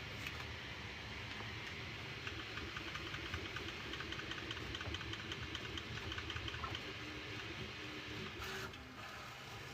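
Bambu Lab A1 Mini 3D printer running a print, muffled by its enclosure: a steady mechanical hum with rapid fine ticking from the moving print head and stepper motors, and brief low motor tones in the second half.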